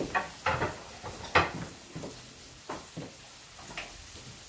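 Kitchen utensils knocking and clinking against cookware as the sole fillets are handled with spatulas: a few separate sharp knocks, the loudest about a second and a half in.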